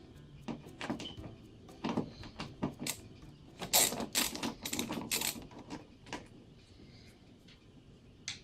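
Irregular clicking of a ratcheting screwdriver backing screws out of a portable air conditioner's plastic housing, loudest in a run of sharp clicks a few seconds in, then fading to a few faint ticks.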